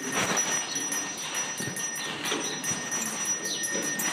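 Supermarket background noise: distant indistinct voices and light clatter over a steady high electronic whine.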